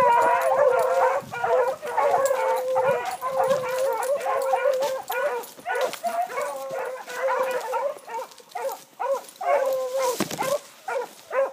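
A dog howling and baying in long, wavering calls that break into shorter yelps in the second half and stop near the end.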